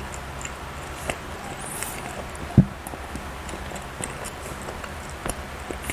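A person eating close to the microphone: scattered small wet mouth clicks from chewing soft bread or cake, with one sharp low thump about two and a half seconds in.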